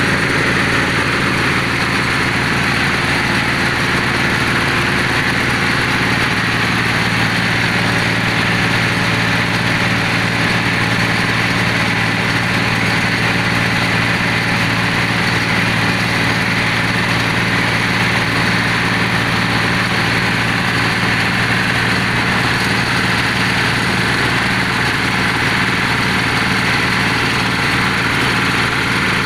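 Engine of a bore-well drilling machine running steadily at a constant speed.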